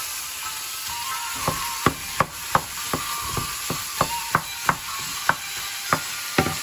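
A wooden spoon chopping and pressing raw ground beef in a hot skillet, knocking against the pan about a dozen times, two or three a second, starting about a second and a half in, over a steady sizzle of frying meat and onion.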